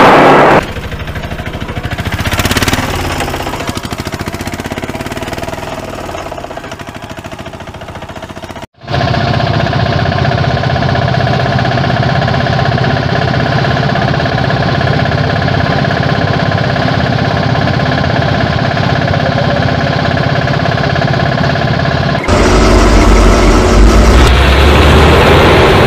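Vehicle engine sounds laid over toy vehicles, in several segments with sudden cuts: a loud horn ends just after the start, then an engine runs until a sharp cut about nine seconds in. A steadier engine hum with several pitches follows, then a louder, deeper engine sound near the end.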